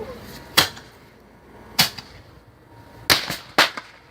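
Fireworks going off: about six sharp bangs at uneven intervals, the last four coming close together.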